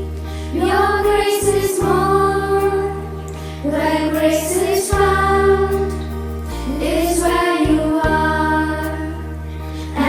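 Voices singing a slow devotional song over a keyboard accompaniment with long held bass notes, each phrase beginning with a slide up into the note.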